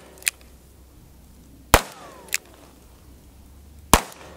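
.357 Magnum handgun fired twice, about two seconds apart, each shot followed about half a second later by a fainter sharp crack.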